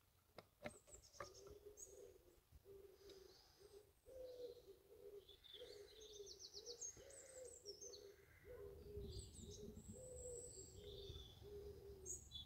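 Faint birdsong: a long run of low cooing notes, repeated almost without a break, with higher chirps and trills of small birds over it. A few faint clicks about a second in.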